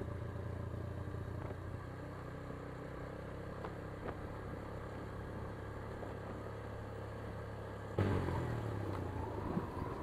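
Motorcycle engine running steadily under the rider at cruising speed, a low even hum. About eight seconds in the sound abruptly becomes louder and rougher.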